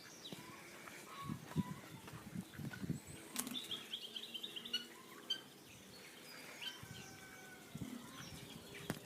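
Birds chirping faintly in short, scattered calls, with a quick run of chirps about three and a half seconds in.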